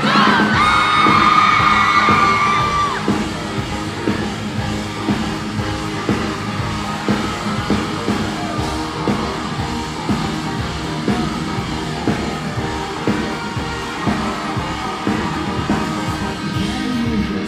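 Live rock band playing with a steady drum beat. A long held vocal note rings out over the first few seconds, with yelling from the crowd.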